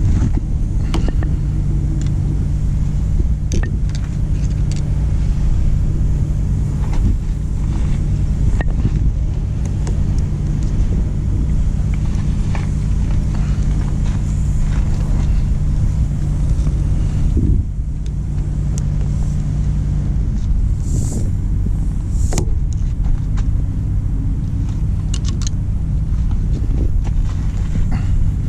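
Truck engine idling steadily, with scattered light clicks and taps throughout.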